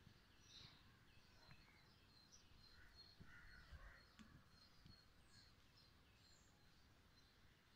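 Faint outdoor bird calls: many short high chirps from small birds, with a couple of fuller, lower calls in the middle, over near-silent background hiss and a few soft low knocks.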